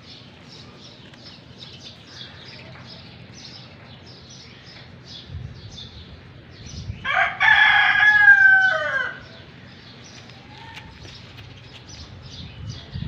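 A rooster crows once, loud and drawn out for about two seconds, its pitch falling away at the end. Small birds chirp in short high notes a few times a second throughout.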